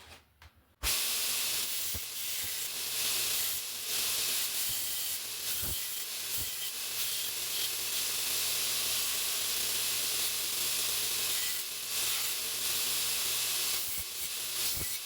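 A power grinder grinding the heavy burrs off a steel knife blank: a steady, even hiss that starts suddenly about a second in, over a low motor hum.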